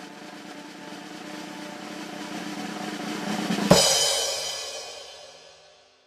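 Snare drum roll building steadily louder for about three and a half seconds, ending in a loud crash that rings out and fades over about two seconds.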